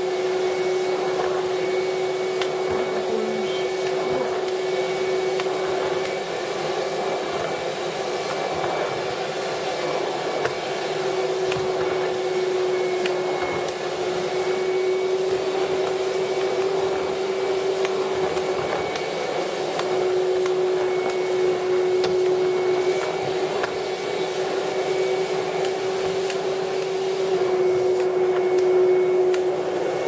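Kitfort stick vacuum cleaner running steadily: a constant motor hum on one held pitch under a rush of air.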